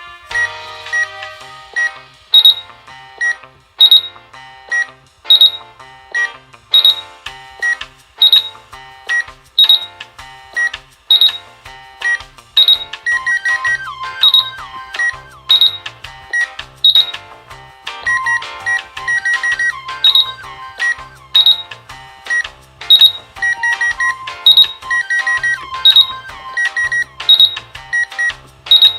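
Background music with a steady beat and short, high pitched notes.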